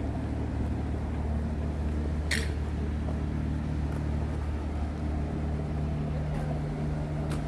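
Steady low engine hum, like a motor idling. A short sharp sound comes about two seconds in.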